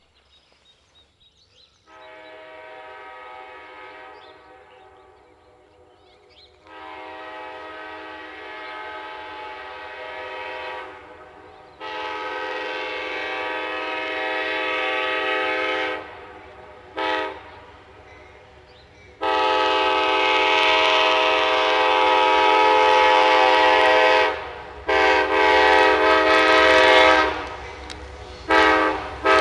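Horn of an Amtrak P42DC diesel locomotive sounding a chord in a long, played series: four long blasts, a brief toot between them, and a quick run of short toots near the end. It grows steadily louder as the train approaches.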